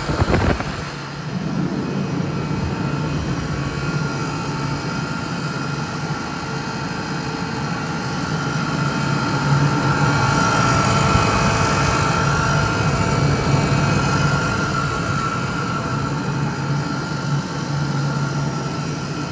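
Atlas Copco GA11FF 11 kW direct-drive screw air compressor running steadily: a constant low hum with a higher steady whine over it. A brief knock comes at the very start.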